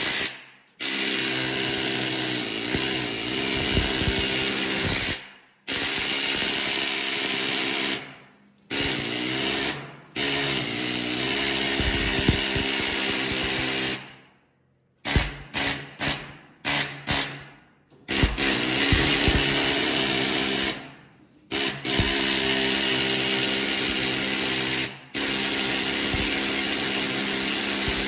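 A handheld power tool running at a steady high whine in long runs. It is released several times and spins down each time, then is pulsed in short quick bursts about halfway through before running steadily again.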